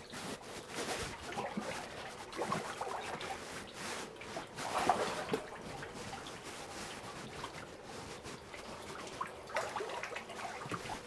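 Water trickling and dripping in a flooded mine tunnel, with small irregular drips and splashes and one slightly louder splash about five seconds in.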